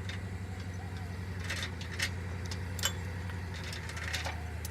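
Heavy diesel engine idling steadily, with a few short, sharp clicks over it.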